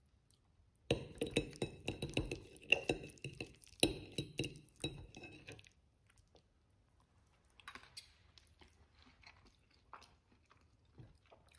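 A metal fork scraping and clinking against a ceramic plate as it twirls spaghetti, with a faint ringing under the clicks for about five seconds. After that come faint, scattered sounds of chewing.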